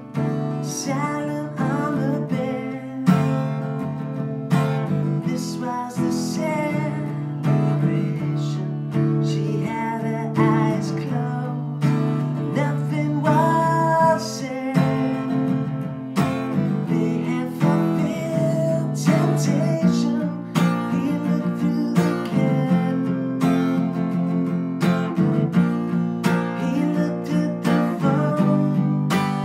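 Acoustic guitar strummed steadily in chords, with a man singing along at times.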